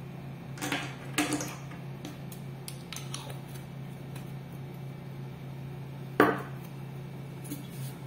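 Light clinks and knocks of a glass ink bottle being capped and handled on a tabletop, with one sharper knock about six seconds in, over a steady low hum.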